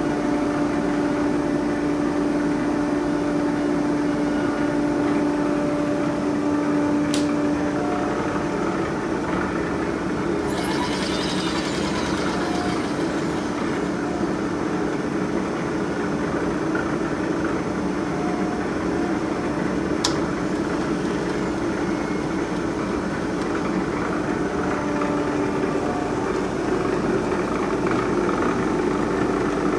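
Bridgeport vertical milling machine running with a steady mechanical hum and a held low tone. Two sharp ticks and a brief high whine that rises and falls come partway through.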